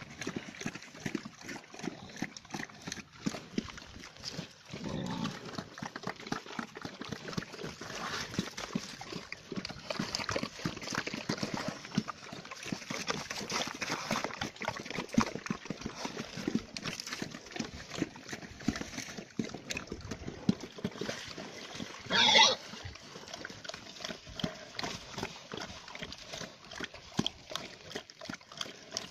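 Pigs eating wet mash from bowls: continuous irregular smacking, slurping and chomping. One brief, sharp, louder sound stands out about three quarters of the way through.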